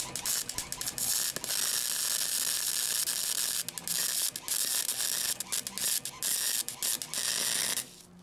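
MIG welder arc crackling steadily as a bead is run around a sleeved exhaust-pipe joint, with a few short breaks, stopping shortly before the end.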